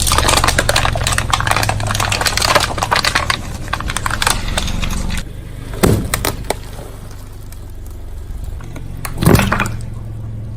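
Hard candy lollipops cracking and crunching under a car tyre: a dense run of snaps for about five seconds over the car's low engine hum, then two single thumps.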